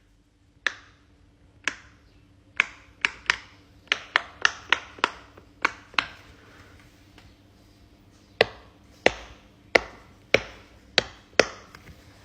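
An irregular series of sharp taps or clicks, about twenty in all, each with a short ringing tail, coming faster for a couple of seconds near the start of the second quarter, then more spaced out.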